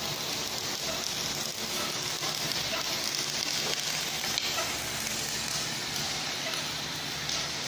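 MIG welding arc crackling and sizzling steadily as a bead is laid.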